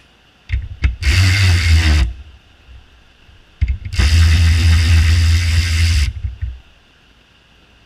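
Snap-On 14.4-volt cordless 3/8-inch ratchet run twice, whirring as it spins a nut on a bolt: first briefly, then for about two and a half seconds.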